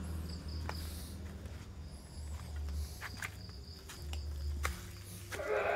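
Insects chirping with a high, steady, on-and-off tone, with footsteps and small clicks. Near the end, a short loud animal call cuts in.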